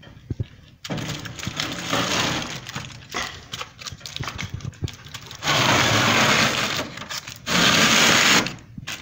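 Aluminium foil crinkling and rustling as a foil-wrapped clay pot is handled and pushed into a wood stove's oven, with many small crackles. In the second half come two louder stretches of rustle: one of nearly two seconds, then a shorter one.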